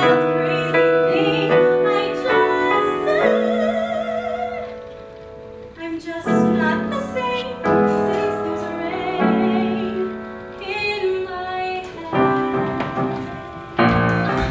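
A woman singing a musical-theatre song with piano accompaniment, her long notes held with vibrato over struck chords; a final chord sounds near the end.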